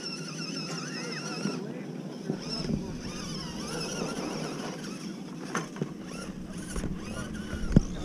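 Thin, wavering whine of an RC rock crawler's electric motor for the first second or two. After that, wind rumbles on the microphone, with a few knocks.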